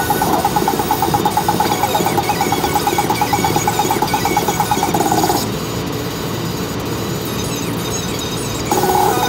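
Road and engine noise of a moving car, with a rapid, evenly pulsing tone pattern over it that stops a little past halfway and starts again near the end.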